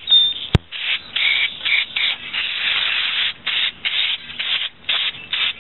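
Aerosol carb cleaner sprayed in a run of short hissing bursts onto an aluminium motorcycle cylinder head, one burst lasting about a second, with a sharp click about half a second in.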